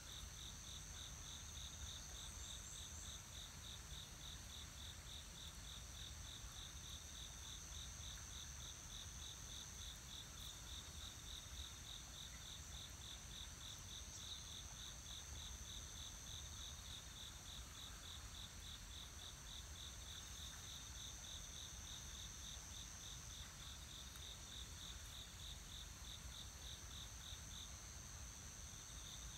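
Insects chirping: an even, pulsed chirp about three times a second over a continuous high-pitched trill, with a faint low rumble beneath.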